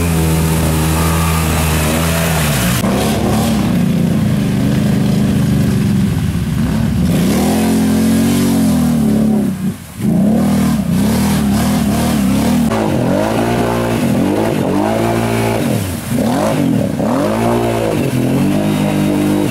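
ATV engines working through deep mud. The engine note holds steady at first, then from about eight seconds in it is revved again and again, the pitch rising and falling roughly once a second as the throttle is worked to keep the machine moving.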